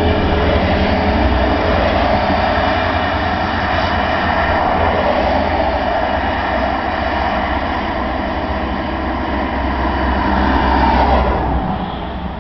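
Car driving at road speed, heard from inside the cabin: a steady low engine drone under loud tyre and wind noise. The noise falls off somewhat near the end.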